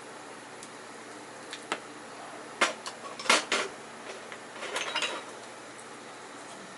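Cookware and utensils clinking and knocking, a handful of sharp strikes in the middle seconds, over a steady hiss.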